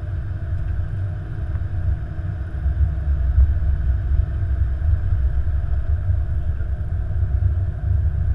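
Flight-deck noise of an Airbus A330-200 taxiing: a steady low rumble from the airframe and rolling wheels, with a faint steady hum above it.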